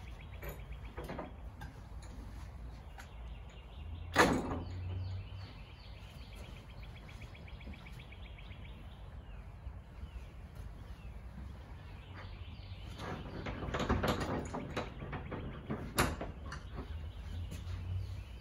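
Metal partitions and latches of an Equi-Trek horse trailer being swung and fastened: a loud clank about four seconds in, a run of rattling clicks near the end, then a sharp latch click.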